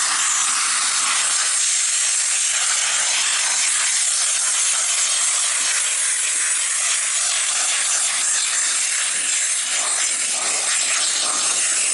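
Vapor Rino 145 PSI dry vapor steam cleaner jetting steam through its nozzle in a steady loud hiss, with a bristle brush attachment scrubbing a golf cart wheel.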